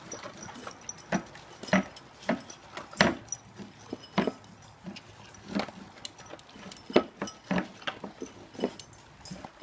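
Australian Cattle Dog mix puppy crunching dry kibble from a bowl: irregular sharp crunches, roughly one or two a second.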